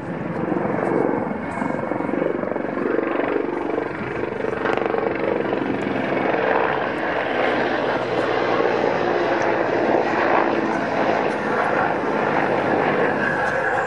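Mil Mi-24 Hind helicopter flying past in a display: loud, continuous rotor and twin turboshaft engine noise with steady whining tones running through it.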